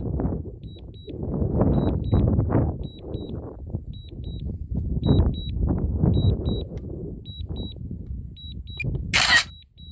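DJI drone app alert beeping in short high double beeps that repeat every half second to a second while the drone is in automatic Return-to-Home. Beneath them is uneven, muffled low background noise, and a brief sharp noise comes near the end.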